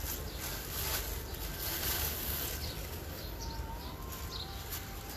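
Faint, scattered bird chirps over a steady hiss and low rumble of outdoor background noise.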